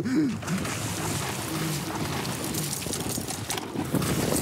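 Steady wind and water noise, with a hooked dorado splashing as it leaps and thrashes at the surface near the end.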